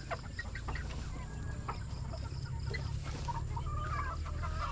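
Chickens clucking, with scattered short calls that grow busier in the second half, over a steady low hum.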